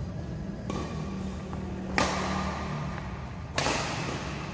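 Badminton rackets striking a shuttlecock during a doubles rally: a faint hit about a second in, then two sharp, louder hits about a second and a half apart, each leaving an echo that hangs in the hall. A steady low hum runs underneath.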